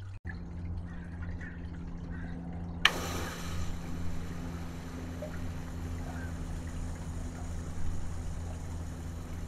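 Melnor turret sprinkler on a hose faucet timer switching on about three seconds in: a sudden burst of water, then a steady hiss of spray. A steady low hum runs underneath.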